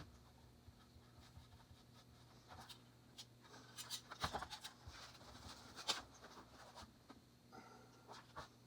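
Faint scratching with light taps and clicks, clustered in the middle and loudest there, over a low steady hum.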